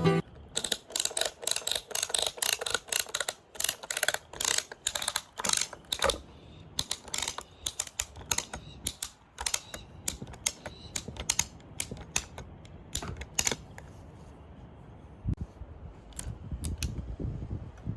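Rapid, irregular sharp taps and clicks, dense for the first several seconds and then thinning out, with a low rumble coming in near the end.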